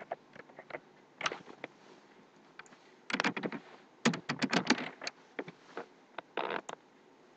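Typing on a computer keyboard in short bursts of keystrokes, with pauses of a second or two between the bursts.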